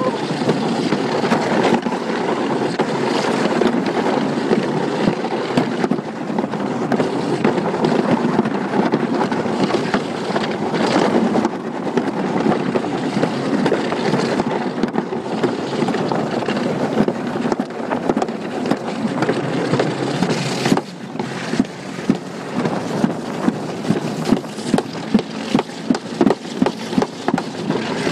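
Alpine slide sled running down the concrete track: a continuous rough rumbling scrape, with wind on the microphone. In the last several seconds, regular knocks come about twice a second.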